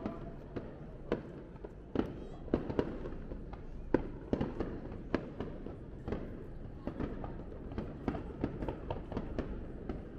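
Fireworks display: many sharp bangs in quick, irregular succession, some trailing off in a short echo.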